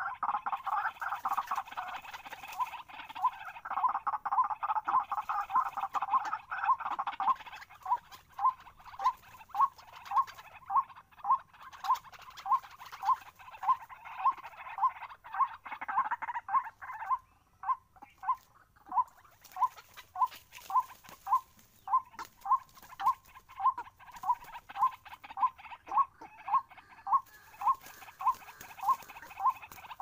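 White-breasted waterhens calling: a long series of short, even notes repeated about twice a second. In the first several seconds the calls are denser and overlap.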